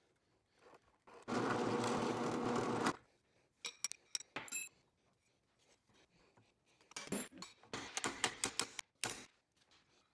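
Drill press motor running for about a second and a half, starting about a second in, as holes are drilled for the handle pins. It is followed by light clicks of the steel tang and micarta handle scales being handled, then a scratchy stretch of rapid clicks near the end.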